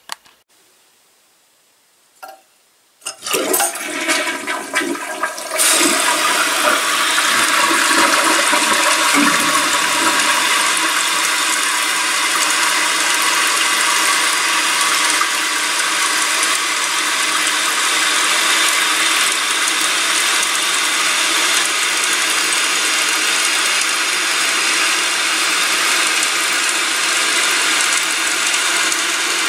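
A toilet flushed with its tank lid off: after a short click, water rushes out about three seconds in, then a steady loud rush of water runs on, typical of the tank refilling.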